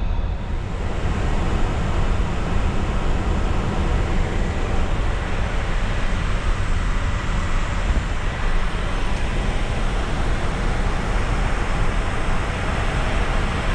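Steady rushing noise of an Airbus A350 in flight, heard inside the flight deck: airflow and engine noise, heaviest in the low end and unchanging throughout.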